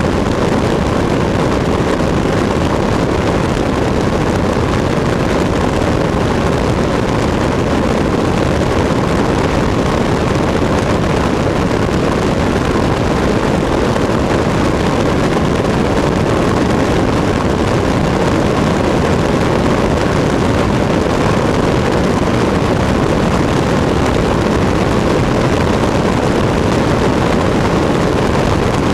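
Cessna 152 in cruise flight: the steady drone of its four-cylinder Lycoming engine blended with a loud, unbroken rush of airflow, heard from outside the fuselage.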